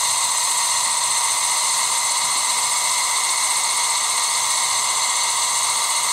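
A steady, even hiss at a constant level, with no breaks or knocks.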